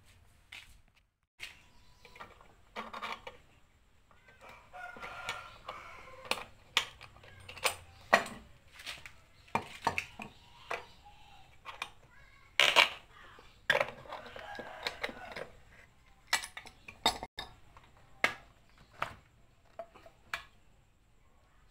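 Steel C-clamps being unscrewed and knocked down onto a wooden workbench while the glued wooden block is handled: a string of clicks, clinks and wooden knocks. A rooster crows in the background twice, each call lasting a couple of seconds.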